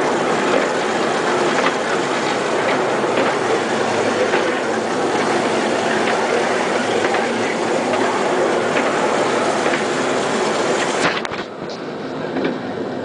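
Miniature kiddie-ride train rattling and clattering along its narrow track, heard from one of its cars. About eleven seconds in the clatter thins out and gets quieter.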